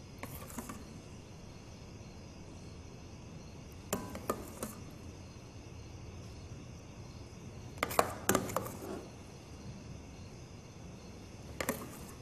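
Metal ladle clinking and knocking against a stainless steel pot and a plate while thick porridge is scooped and served, in four short clusters of clicks, the loudest about eight seconds in. A steady faint hiss runs underneath.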